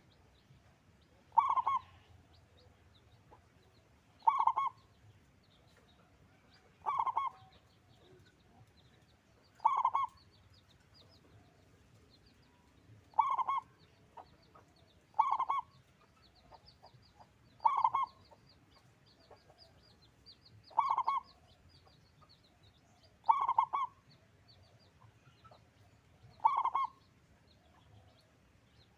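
Zebra dove (perkutut) of the local type singing, its short staccato cooing phrase repeated steadily about once every two to three seconds.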